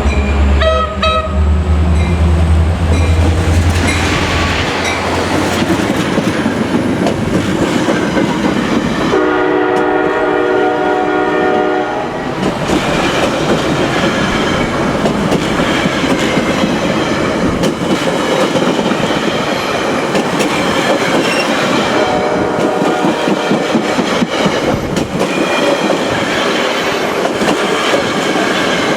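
Metra MP36 diesel locomotive passing close at speed with a heavy engine rumble, then the train's coaches rolling by with wheels clattering over the rail joints. About nine seconds in, a train horn sounds a multi-tone chord for about three seconds.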